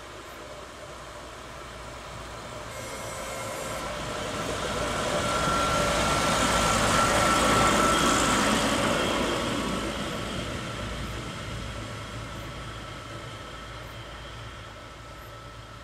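Harz narrow-gauge diesel railcar passing close by. Its running noise builds to a peak about eight seconds in, then fades as it moves off down the line, with a steady whine running through it.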